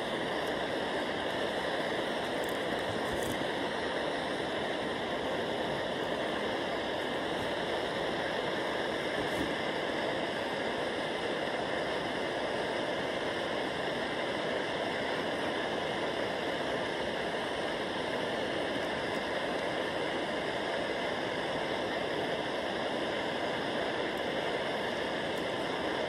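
River water rushing past the camp: a steady, even noise with no breaks or changes in level.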